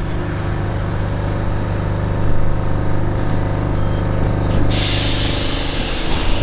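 Lisbon number 28 tram running, a steady low hum with several even tones from its motors and running gear. About three-quarters of the way through, a loud hiss starts suddenly and continues.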